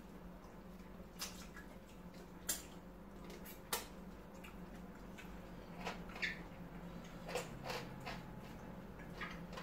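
Close-miked eating sounds: chewing, sucking and lip smacking on chicken wings, heard as about ten short wet clicks and smacks scattered through, over a faint steady low hum.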